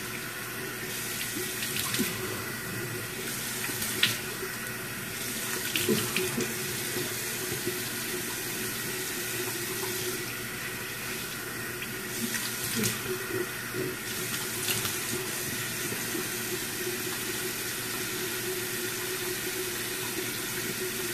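Bathroom sink tap running steadily while water is splashed onto the face by hand to rinse it, with sharper splashes now and then, clustered around the first few seconds and again near the middle.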